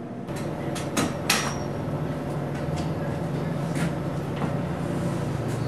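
Steady low hum of room noise with a handful of sharp knocks and clicks, most of them in the first second and a half.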